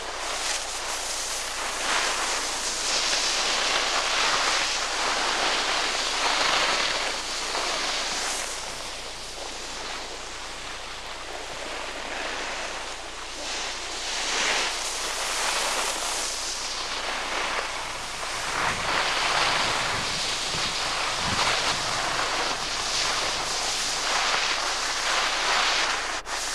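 Rushing wind on the camcorder microphone mixed with skis hissing over packed snow, in long swells that rise and fall over several seconds.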